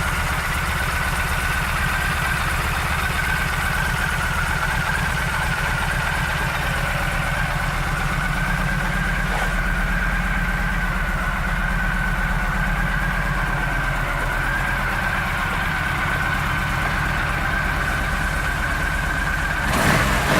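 Yamaha V-Star 1300's V-twin engine idling steadily, with a steady high whine over the low beat; just before the end it is revved up.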